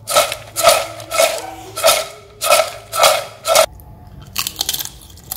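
Fried breadfruit chips shaken and tossed in a metal pot to coat them with chili salt: seven rhythmic rattling swishes, about one every 0.6 s, then a few softer clicks of the chips settling.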